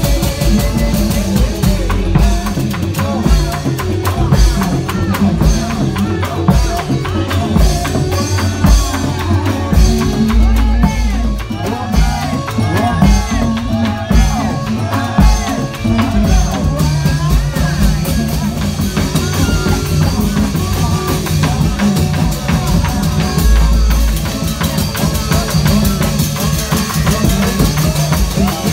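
Loud drum-driven music accompanying a reog troupe from Indramayu, with heavy drums keeping a steady beat throughout. A wavering melody line rises and falls over the drums around the middle.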